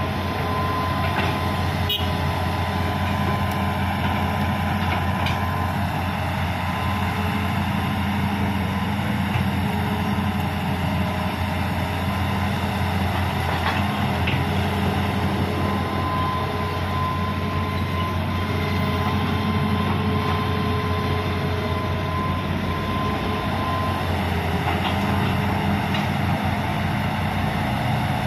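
Hitachi hydraulic excavator's diesel engine running steadily under load as it digs a ditch: a low drone with a thin, steady high whine above it and a few faint knocks.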